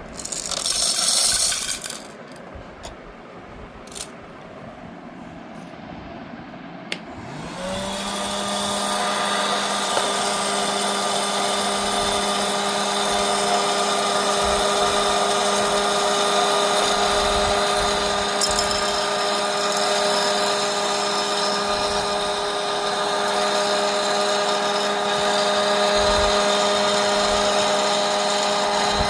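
A small electric popcorn machine's motor switched on, spinning up quickly to a steady hum and running on. It is preceded by a short loud hissing noise and a few clicks.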